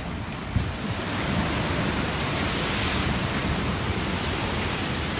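Ocean surf washing in steadily, with wind on the microphone; the wash swells a little about two to three seconds in. A single short knock about half a second in.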